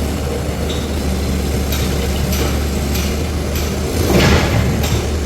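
A motor vehicle's engine running with a steady low drone, with a few sharp knocks or clanks about a second apart and a brief louder rush of noise about four seconds in.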